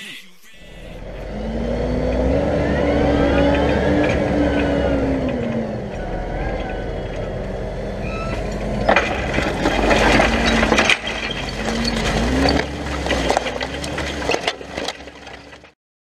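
Fendt 720 tractor engine running under load, its revs rising, holding and dropping back twice, with some knocking and clattering about two-thirds of the way through. The sound cuts off suddenly near the end.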